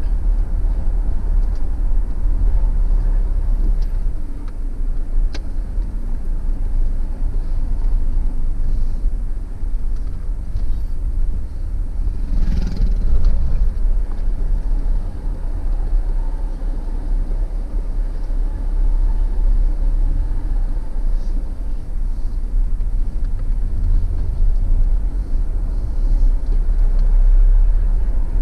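Inside a moving car: steady low road and engine rumble while driving, with a brief louder noise about twelve seconds in.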